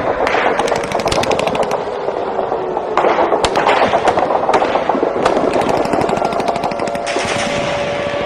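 Rapid rattling bursts of automatic gunfire on the soundtrack, a dense run of sharp cracks over a noisy bed, with a steady tone coming in near the end.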